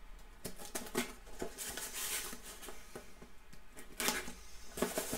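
Small cardboard box being opened and handled by hand: scattered taps, scrapes and rustling of cardboard, with louder clusters about four and five seconds in.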